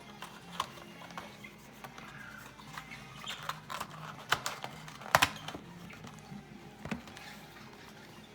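Cardboard hobby box and foil card packs being handled and opened: scattered light clicks and rustles, with a louder sharp snap about five seconds in.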